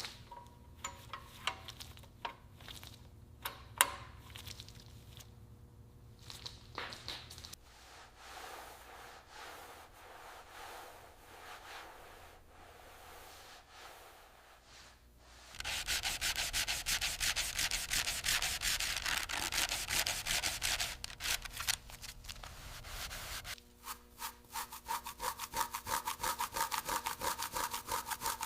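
Sanding: soft, scattered rubbing and a few clicks at first, then about halfway through loud, fast back-and-forth sanding strokes that break off briefly and start again.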